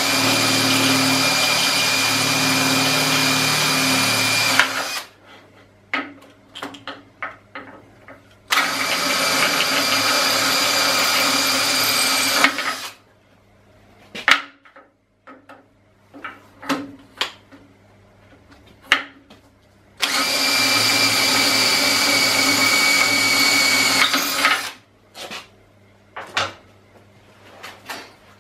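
Handheld electric drill boring tapping-size holes into the RF30 mill drill's head casting. It makes three steady runs of about four seconds each, with the first ending about five seconds in, and handling clicks and knocks between the runs.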